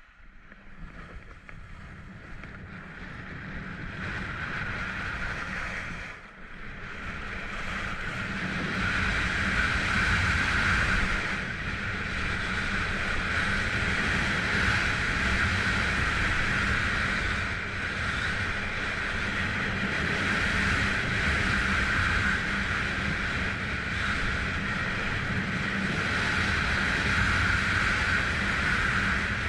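Telemark skis sliding and carving on groomed snow, a steady hiss mixed with wind rushing over the microphone. It builds over the first several seconds as speed picks up, dips briefly about six seconds in, then stays loud.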